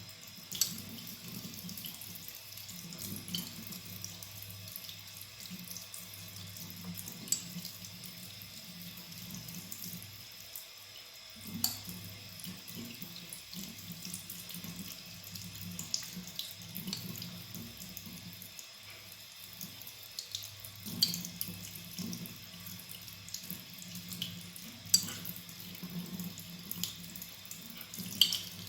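Razor being honed on a wet Japanese natural finishing stone (Nakayama Karasu awasedo): a steady wet scraping hiss of strokes that swells and fades, with an occasional sharp tick every few seconds.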